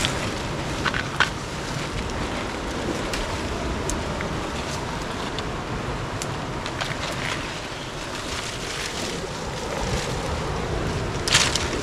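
Steady rushing wind noise on the microphone, with brief rustles and snaps of foliage as clusters of wild figs are pulled off a tree, and a louder rustle near the end.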